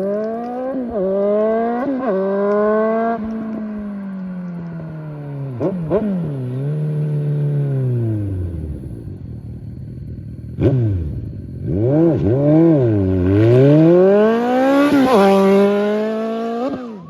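Suzuki Bandit 1250 inline-four motorcycle engine accelerating at full throttle. Its pitch climbs and drops briefly at each gear change, winds down to a low steady note around the middle, then revs up hard again through more shifts.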